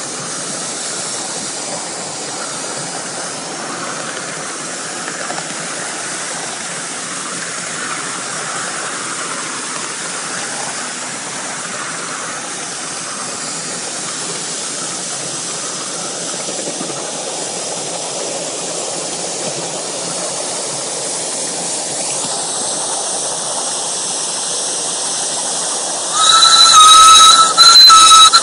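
5-inch-gauge live-steam C2 Atlantic model locomotive running with a steady hiss of steam, then its steam whistle sounds two loud, steady-pitched blasts near the end.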